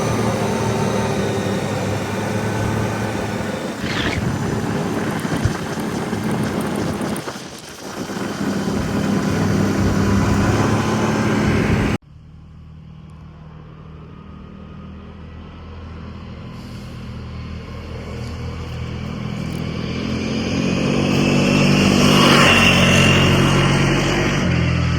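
ATV engine running under way, with a heavy rushing noise over it. After a sudden cut about halfway through, the engine is quieter, then grows steadily louder, its pitch rising as it revs near the end.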